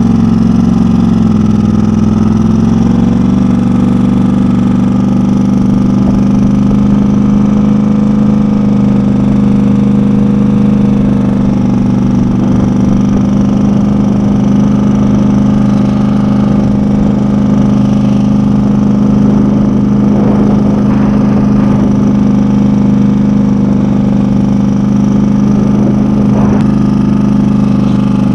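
2010 Polaris Sportsman 850 XP ATV's parallel-twin engine running loud and steady, its pitch dipping briefly near the start. Its exhaust pipe is falling off, which the owner says leaves it sounding like it wants to be straight piped.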